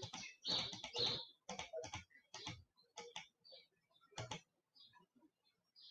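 Computer keyboard being typed on, keys clicking in short irregular runs of a few strokes a second, stopping about four and a half seconds in.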